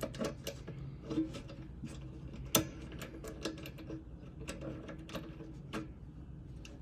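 Irregular small clicks and taps of a hand tool tightening the screws of the cord clamp on an air compressor, with one sharper click about two and a half seconds in.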